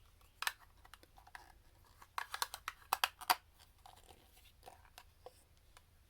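Small plastic toy parts and packaging handled by hand: a scatter of light clicks and crinkles, busiest between about two and three and a half seconds in.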